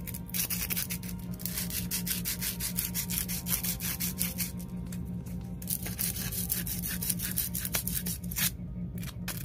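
Sandpaper wrapped round a bar rubbed back and forth by hand in quick repeated strokes against the camshaft bearing saddle of a Honda RS150's aluminium cam holder, with a short pause near the end. The saddle is being sanded down because the camshafts bind and will not turn when the holder is tightened.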